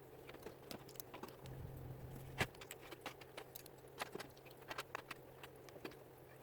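Plastic LEGO bricks clicking and rattling as pieces are handled, in scattered sharp clicks, over a steady low hum.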